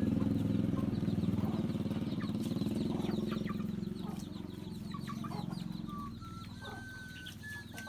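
Chickens clucking and calling over the steady hum of a small engine. The engine is loudest at first and fades away over the last couple of seconds.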